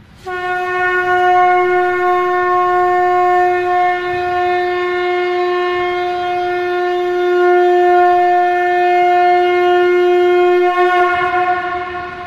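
Conch shell (shankha) blown in one long, loud, steady note, wavering slightly near the end before it stops.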